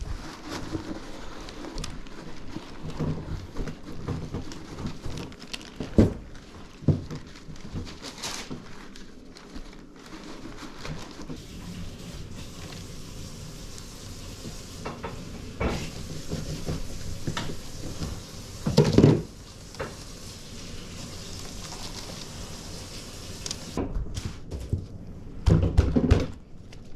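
Hands working on a raw whole lamb carcass, scooping and wiping out its cavity: rustling and wet scraping with scattered knocks against the table, the loudest about 19 seconds in and a few more near the end.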